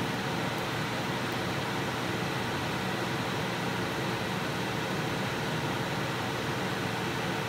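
Steady rushing noise with a faint hum of constant pitch, and no distinct crackling.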